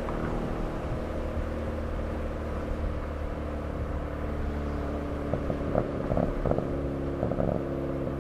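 2008 Chevrolet Cobalt SS's turbocharged 2.0-litre four-cylinder idling steadily through a Hahn turbo-back exhaust, with short throttle blips a little past the middle and again near the end.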